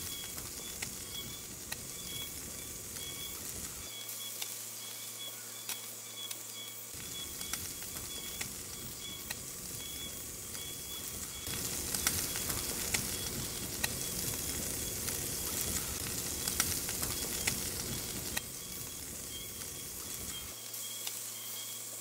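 Food sizzling as it fries in a hot pan, with scattered pops and crackles. The sizzle grows louder for about seven seconds in the middle.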